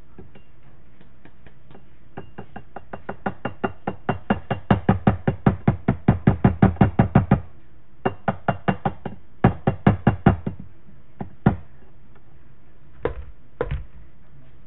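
Rapid hard knocking of a funnel being tapped to work dried thyme through, about five knocks a second and growing louder, then shorter runs and a few single knocks near the end.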